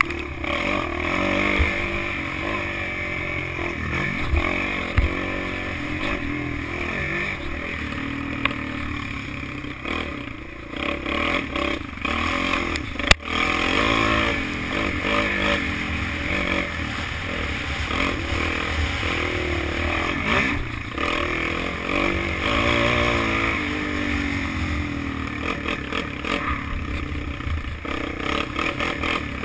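Kawasaki KFX 400 quad's single-cylinder four-stroke engine revving up and down while riding over rough dirt, with wind noise and the chassis clattering over bumps. A sharp knock stands out about 13 seconds in.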